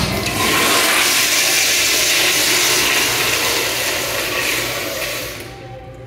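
Zurn flushometer valve on a commercial toilet flushing after its button is pressed: a loud rush of water that lasts about five seconds and fades out near the end.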